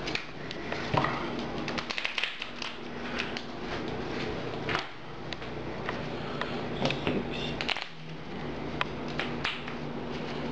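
Trading cards in plastic sleeves being handled and set down on a table: scattered light clicks and taps over a steady low hum.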